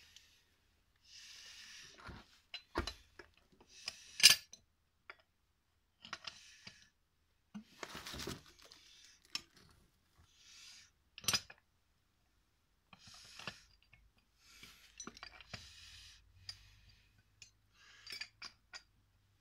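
Metal hand tools clinking and scraping on an old SAC vacuum pump during restoration work. The sound comes in short, irregular spells of scraping, broken by sharp metallic knocks; the loudest knock comes about four seconds in, and another strong one about eleven seconds in.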